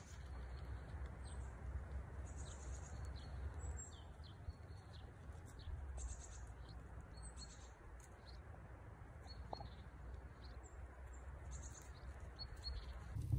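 Small birds chirping and twittering outdoors: many short, high calls scattered throughout, over a faint low steady rumble.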